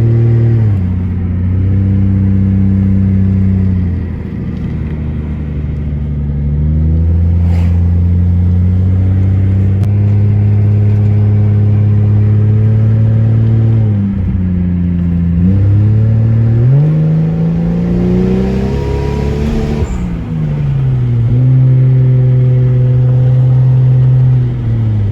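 Nissan Skyline R33 with an HX35 single turbo, cruising: its engine holds steady revs with drops in pitch at gear changes. It revs up twice in succession about halfway through, with a brief hiss at the top, then settles back to steady cruising.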